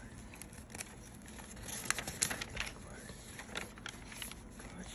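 Lined notebook paper rustling and crinkling as pages are handled and turned, with a run of sharp crackles about two seconds in and more near the end.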